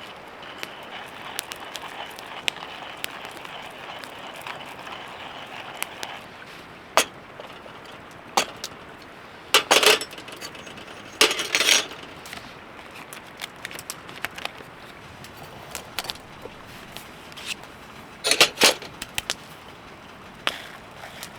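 Camp breakfast being cooked: metal cookware and utensils clink and knock in several short clusters, over a steady hiss that stops about six seconds in.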